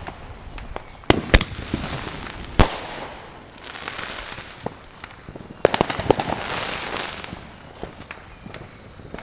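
Consumer fireworks going off: a few sharp bangs in the first three seconds, then a stretch of crackling, and another cluster of bangs with crackling about six seconds in.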